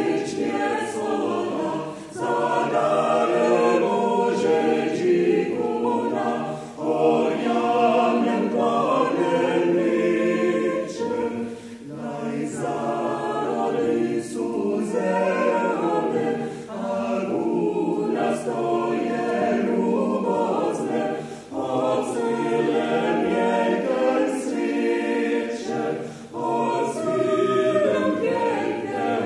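A small mixed choir of women's and men's voices singing a Sorbian song a cappella, in phrases with short breaks for breath every few seconds.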